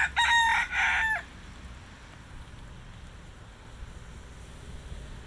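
A rooster crowing, one cock-a-doodle-doo that ends about a second in, followed by a low steady rumble.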